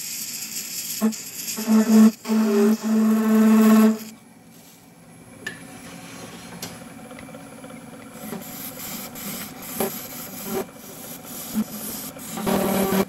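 Hand-held flat scraper cutting a solid brass blank spinning on a wood lathe, the cut ringing as a loud pitched squeal in stretches during the first four seconds. It falls to a quieter scraping with scattered ticks of brass chips, and the squeal returns near the end as the tool cuts again.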